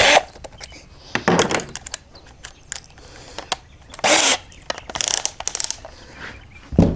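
Plastic scraping, clicking and knocking as a hatch ring is worked into a kayak's deck opening. The handling comes in short, irregular bursts, with the longest scrapes about a second in and around four and five seconds.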